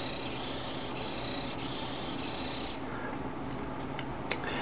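Hobby RC servo motor whining through its gears as it turns, driven step by step by a control slider. The whine comes in a series of short spurts and stops about three seconds in.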